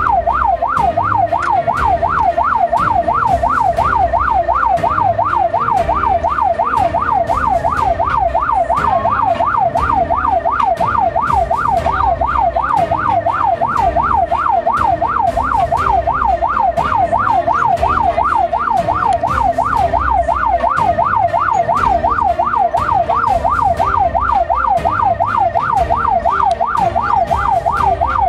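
Ambulance siren on its fast yelp setting: a loud wail sweeping up and down about three times a second without a break, heard from inside the cab over the engine and road rumble.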